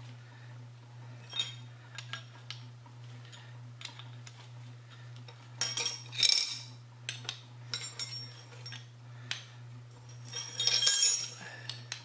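Light metallic clinks and clicks of brass gas fittings and tools being handled as a gas hose is fitted onto a propane burner, with two short bursts of clatter about halfway through and near the end. A steady low hum runs underneath.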